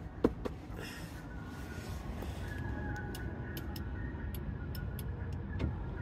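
Mercedes-Benz Sprinter 3500's diesel V6 idling, a steady low rumble heard from inside the cab. Two sharp clicks come just after the start, and a run of light, regular ticks follows in the second half.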